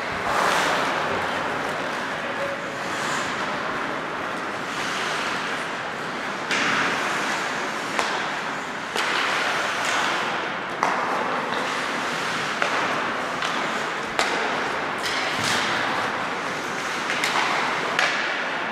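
Ice hockey play on the rink: skates scraping and carving the ice in repeated swells, with several sharp clacks of stick on puck or puck on the boards through the second half.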